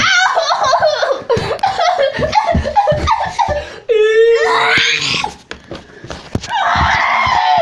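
A child laughing hard in quick, choppy bursts, with one long drawn-out shriek about four seconds in.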